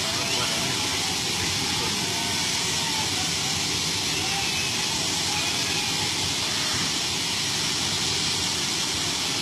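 Steady rushing noise of a suburban train running through floodwater, even and unchanging throughout.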